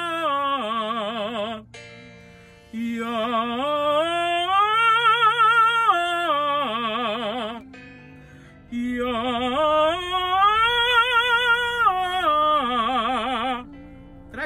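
A man singing a belted vocal arpeggio exercise, do-mi-sol-do and back down. The phrase comes round about twice: the pitch climbs in steps to a held top note, then comes back down with wide vibrato, with a short breath gap between phrases.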